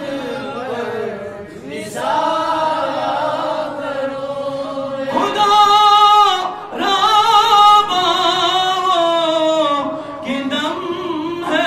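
Unaccompanied male voice singing a naat into a microphone, with long held notes that waver in pitch. The voice is loudest about halfway through.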